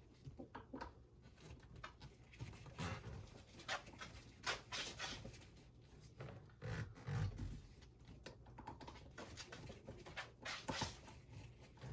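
Faint, irregular clicks and scrapes of a Phillips screwdriver loosening the screws that hold down a car's gear shifter.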